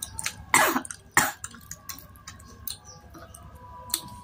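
A woman coughing twice, about half a second apart, with a few small clicks after; the coughs are set off by the hot chili in the spicy seblak she is eating.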